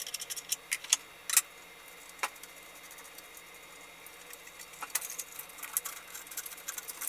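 Scattered sharp clicks and light metallic rattles as the sanding belt is swapped on a 1"x30" benchtop belt sander. The clicks cluster in the first second and a half, go quieter in the middle and pick up again near the end.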